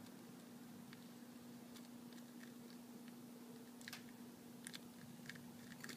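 Faint, scattered crackling clicks of a large brown chicken eggshell cracking as fingers press and pry it open, thickening in the second half. A steady low hum runs underneath.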